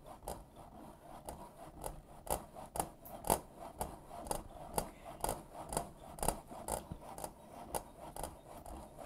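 Cheese being grated by hand on a metal grater: a steady run of rasping strokes, about two a second.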